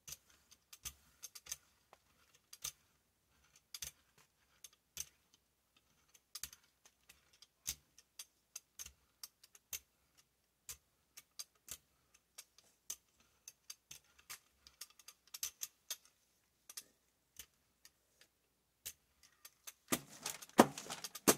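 Brayer rolling black acrylic paint out over a gel printing plate, making faint, irregular ticks and clicks as the roller works the tacky paint. Near the end, a louder rustle as paper is handled.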